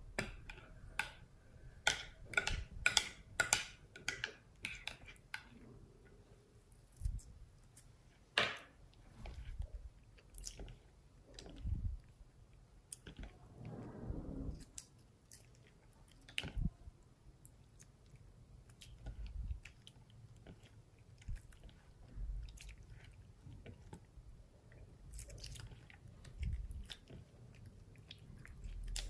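Slime being stirred and then squeezed and stretched by hand in a glass dish: sticky, wet clicking and squelching. A quick run of sharp clicks comes in the first few seconds while it is stirred with a thin tool, then scattered softer squelches as it is kneaded.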